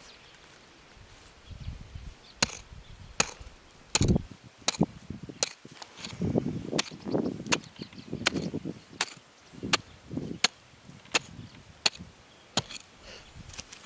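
A digging tool chopping into the ground in steady strokes, a sharp strike about every three-quarters of a second, with crunching and scraping of soil between the strikes. The strokes begin a couple of seconds in.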